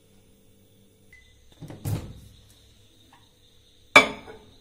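A glass baking dish being put into a microwave oven: a dull knock about two seconds in, then a sharp, loud clink of glass set down on the turntable near the end.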